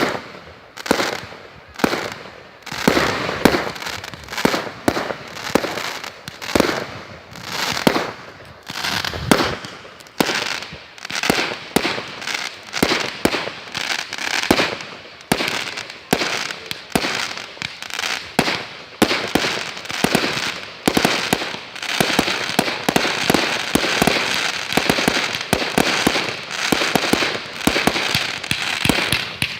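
Aerial fireworks bursting in rapid succession, many sharp booms a second, building after about twenty seconds into a near-continuous barrage with crackling.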